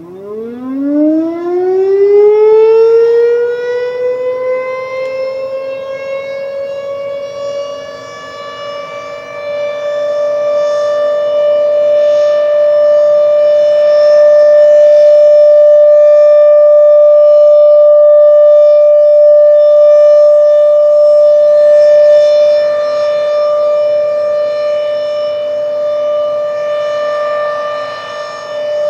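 Thunderbeam RSH-10 outdoor warning siren winding up from a low pitch and settling into a steady, low-pitched wail as its alert signal begins. The sound swells and fades as the rotating siren head turns toward and away.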